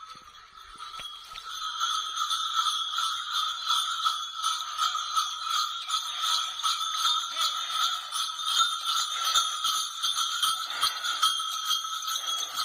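Bells on a pair of Khillari bullocks jingling in a quick, even rhythm as the animals run, getting louder about a second and a half in.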